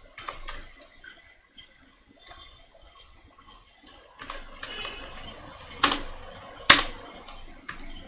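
Computer mouse clicking several times, light and sharp, with two louder knocks about six and seven seconds in.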